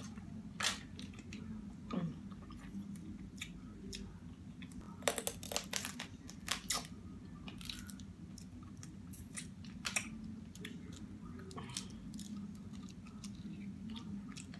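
Close-up eating sounds from a seafood boil: chewing and wet mouth clicks, with scattered sharp clicks and cracks that come in a cluster about five to seven seconds in. A steady low hum runs underneath.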